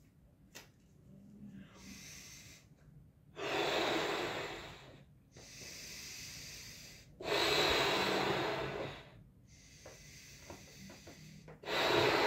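A Folat latex balloon being blown up by mouth: three long, hard breaths forced into it, the last starting near the end, with quieter in-breaths between them.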